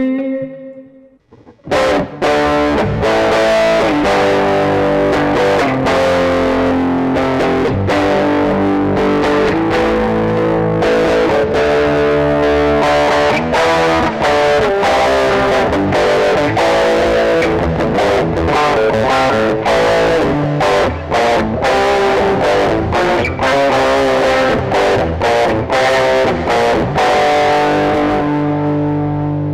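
Electric guitar played with distortion: notes die away into a brief pause about a second in, then a fast run of rapid picked notes, ending on a long held note.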